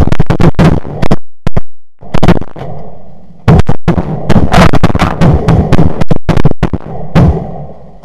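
Rapid shotgun fire from several hunters shooting at snow geese: many loud overlapping shots in quick succession, with a short lull about one and a half seconds in.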